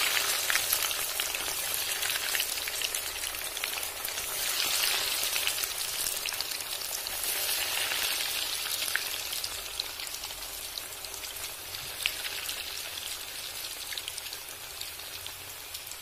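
Hot oil sizzling and crackling as breadcrumb-coated noodle balls deep-fry. The sizzle swells three times in the first half and eases off toward the end.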